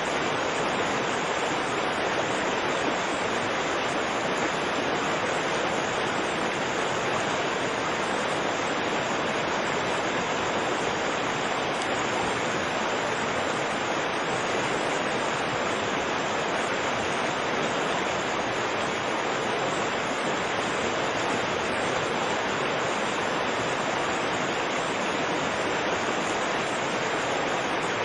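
Fast river water rushing over rapids in a steady, unbroken roar of white water.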